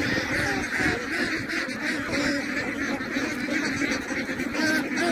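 A large flock of domestic ducks quacking continuously, many calls overlapping into a steady chatter.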